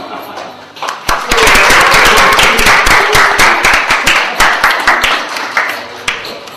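Applause from a small audience in a room, dense clapping that starts about a second in and gradually thins out toward the end.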